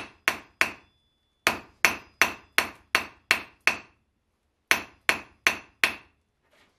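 Hand hammer striking a white-hot, freshly forge-welded bundle of steel bars on an anvil face, about three blows a second. The blows come in three runs, with a pause of about a second between runs: three blows, then seven, then four. The hammering is setting and squaring the forge weld.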